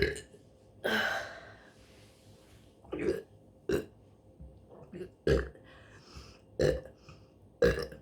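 A woman burping repeatedly: a string of about seven short burps in quick succession, the one about a second in drawn out a little longer than the rest.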